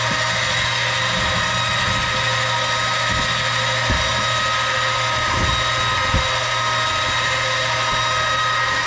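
Battery-powered (DeWalt battery) electric cable lift motor running steadily to let a boxed rooftop AC unit down on its cable: an even mechanical whine over a low hum, with a few light knocks.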